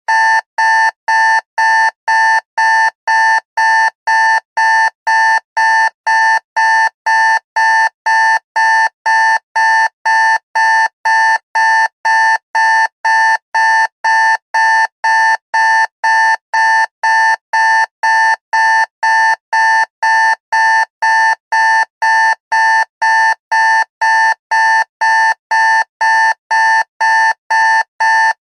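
Digital alarm clock going off: a steady, evenly spaced run of identical high electronic beeps, a bit under two a second, with no change in pitch or pace.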